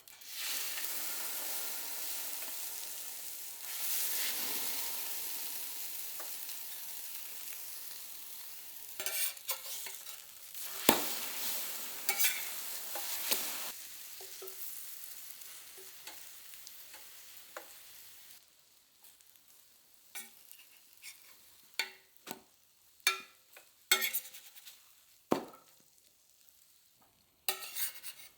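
Food sizzling in a hot frying pan, with a utensil stirring, scraping and knocking against the pan. The sizzle fades away over about eighteen seconds, leaving scattered light clicks and knocks of kitchen utensils.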